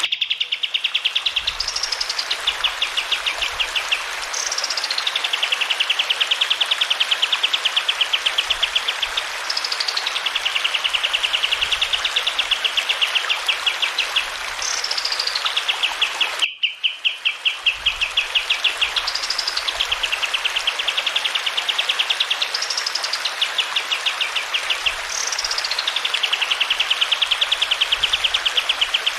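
Kapas tembak (thick-billed heleia) singing a repeated rolling song: each phrase is a quick upward-then-falling whistle, then a long, fast trill, over the steady rush of flowing water.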